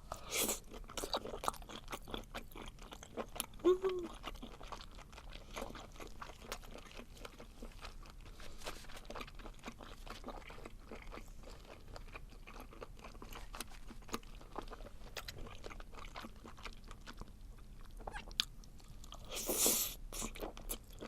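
Close-miked chewing of webfoot octopus: a steady run of small wet clicks and crunches from the mouth, with a louder burst shortly after the start and another near the end.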